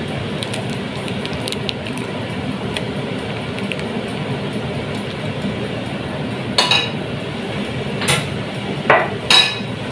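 Pot of saluyot soup on the stove with a steady bubbling hiss as it is stirred with a wooden spoon. Light taps at first, then a few sharp clinks of kitchen utensils or dishes in the second half.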